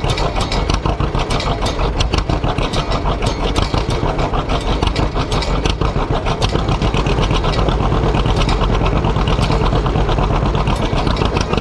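1943 John Deere Model B's two-cylinder engine idling with an even, popping exhaust beat, heard close to its exhaust stack.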